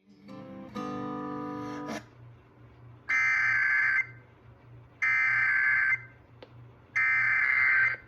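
A short pitched electronic chime, stepping up in pitch and then holding for about a second, followed by three bursts of Emergency Alert System SAME header data tones. Each burst lasts just under a second, with about a second between them. This is the coded header that opens an EAS alert, here a Required Weekly Test.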